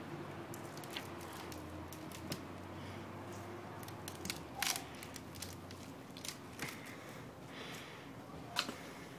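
A long green sapling stick being bent and twisted by hand, giving scattered small cracks and creaks as its fibres strain without snapping. The loudest cracks come about four and a half and eight and a half seconds in.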